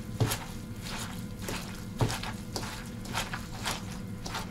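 Hands kneading and tossing julienned daikon radish with chili-flake seasoning in a bowl: a run of short, irregular mixing strokes, about two a second.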